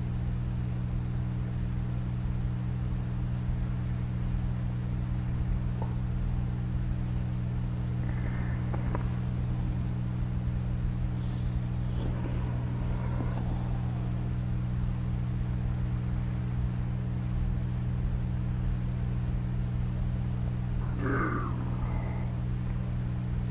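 A steady low hum of several held tones, with faint animal calls coming and going over it: a few around the middle and a couple near the end.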